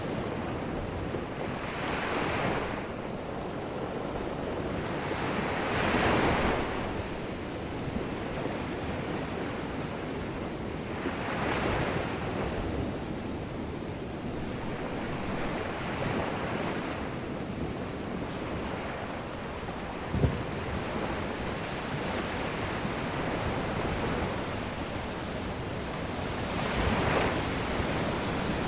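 Ocean surf: waves washing ashore, a steady rush that swells louder every few seconds as each wave breaks, with a short knock about two-thirds of the way through.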